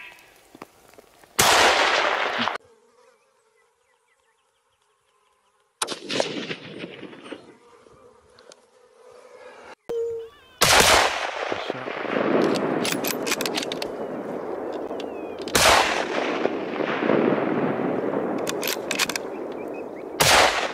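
Rifle shots, about five, each a sudden sharp crack followed by a decaying echo. A steady rushing hiss fills the stretch between the later shots.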